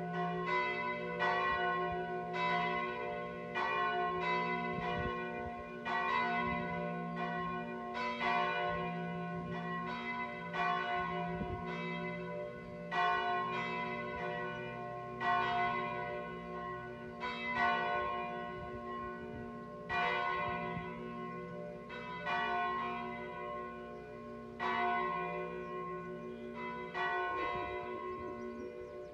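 Church bells ringing from the towers, struck about once a second, with a long humming ring that carries on between strokes. Several bells sound together at different pitches.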